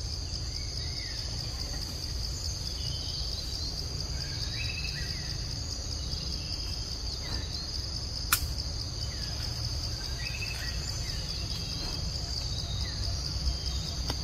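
Steady high-pitched drone of insects in the forest, with scattered short chirps over a low rumble. A single sharp click about eight seconds in.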